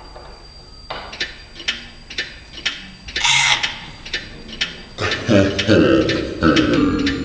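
A clock ticking at about two ticks a second, starting about a second in. A voice joins from about five seconds in.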